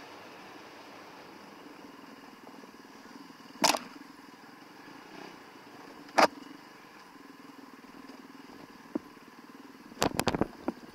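Yamaha WR450F's single-cylinder four-stroke engine idling quietly. Two sharp knocks come a few seconds apart, and a quick rattle of knocks follows near the end.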